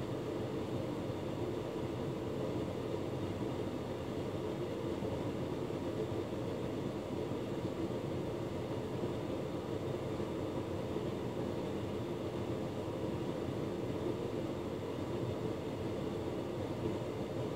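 Hotpoint Ultima S-Line tumble dryer running, a steady, even drone from its motor and turning drum.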